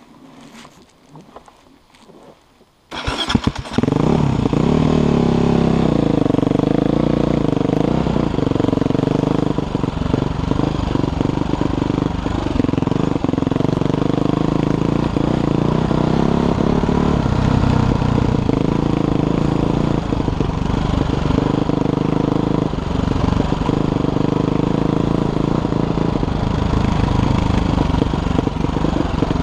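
Dirt bike engine starts suddenly about three seconds in, then runs steadily, its pitch rising and falling with the throttle as the bike rides along a dirt trail.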